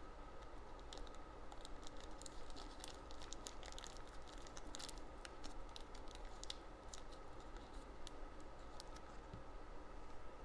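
Small plastic parts bag crinkling and clicking as fingers work at it: faint, irregular ticks that come thickest near the middle.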